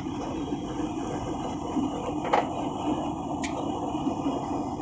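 Steady airliner cabin noise, an even rushing hum, with two brief clicks about halfway through and again a second later.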